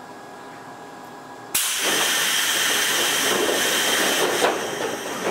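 Toyohashi Railway 1800-series electric train standing at the platform, letting out compressed air from its pneumatic system. The loud, even hiss starts suddenly about one and a half seconds in over a faint steady hum and runs for about four seconds before dying away.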